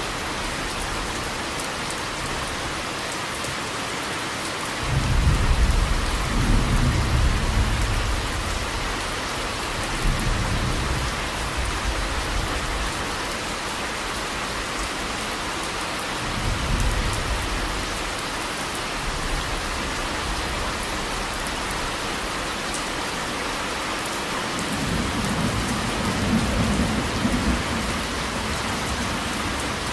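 Steady rain falling, with low rumbles of thunder: the loudest starts suddenly about five seconds in, with smaller ones around ten seconds, midway and near the end.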